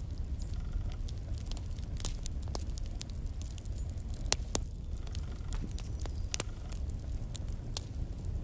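Wood fire burning in a fireplace, crackling with scattered sharp pops over a low steady rumble; one louder pop about four seconds in.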